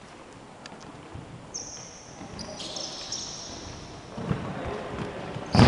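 Rubber-soled shoes squeaking on a wooden futsal court, several short high squeaks about a second and a half in. Then dull thuds of the futsal ball, the loudest one at the very end, ringing in the gym hall.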